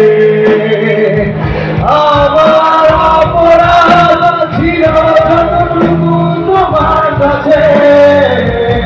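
Live band performance, amplified through a PA: a male singer sings a melody over acoustic guitar, keyboard and drums.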